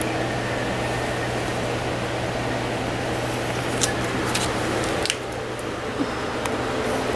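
Cloth dust bag handled and a few light clicks as it is fitted back over a table saw's dust port and clamped, the clicks falling between about four and six and a half seconds in. Under it a steady hum and hiss.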